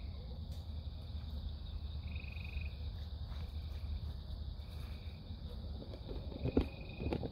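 Night chorus: frogs giving short trilled calls every two to three seconds over a steady insect drone and a low rumble. Two sharp knocks near the end.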